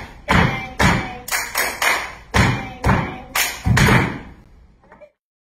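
Irish hard-shoe step dancing: heavy shoes striking the studio floor in a quick, irregular rhythm of loud taps, over faint instrumental music. It all cuts off about five seconds in.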